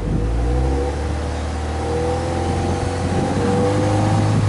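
Exhaust note of a Subaru Legacy 2.0GT spec B's EJ20 turbocharged flat-four, held at a steady raised engine speed, its pitch creeping slightly upward.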